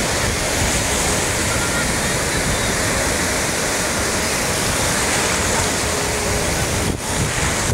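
Ocean surf breaking and washing up the sand close by, a steady loud rush of water, with a brief drop about seven seconds in.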